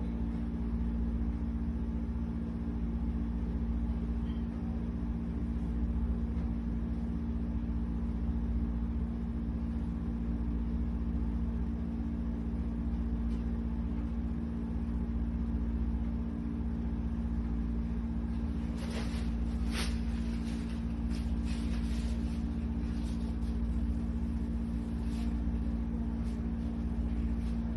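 Steady low machine hum with a deep rumble underneath, unchanging throughout. A few short clicks and rustles come about two-thirds of the way through.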